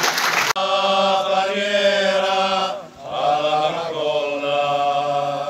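Brief applause, cut off suddenly about half a second in, followed by a group of men singing together: a slow song in two long phrases with held notes.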